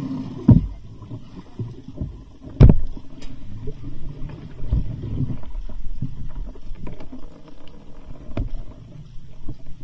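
Low rumbling and knocking from people moving around a small boat, with two loud thumps about half a second and two and a half seconds in, then smaller knocks.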